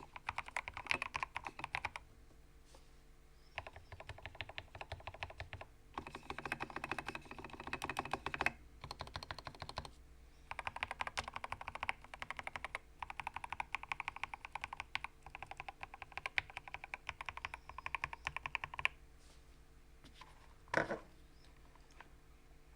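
Ramaworks Kara mechanical keyboard with lubed and filmed switches and internal dampeners, typed on fast in bursts of a few seconds with short pauses between. The typing stops about 19 s in, and a single louder knock follows about two seconds later.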